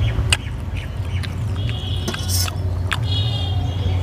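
Eating by hand from steel plates: scattered sharp clicks of fingers and food against the steel, over a steady low hum. A brief high whistling tone sounds twice, about two and three seconds in.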